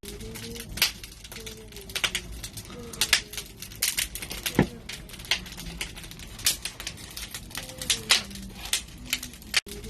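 Barbecue fire crackling, with irregular sharp pops and snaps several times a second.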